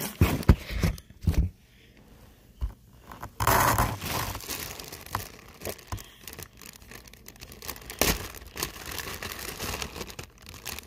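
Rustling, crinkling and scraping with a few sharp knocks as someone shifts and pushes against the inside of a box. The knocks bunch up in the first second or so, with longer rustles about four seconds in and again near the end.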